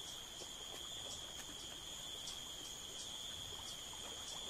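Steady high-pitched insect chorus, one unbroken drone, over faint forest background noise.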